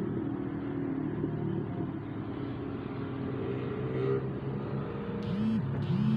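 Road traffic below, heard through window glass from several floors up: a steady hum of car and bus engines and tyres, with two short rising-and-falling sounds near the end.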